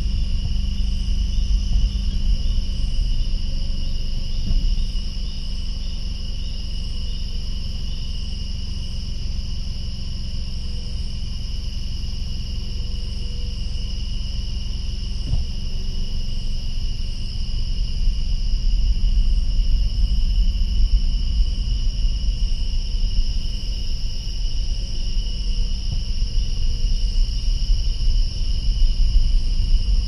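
A steady chorus of crickets and other night insects, trilling in high bands, over the low rumble of a car engine running. In the first few seconds come a few faint high peeps: nocturnal flight calls of migrating songbirds.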